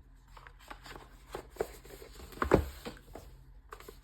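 Hands handling watch packaging: a run of light clicks and rustles, with one louder thump about two and a half seconds in.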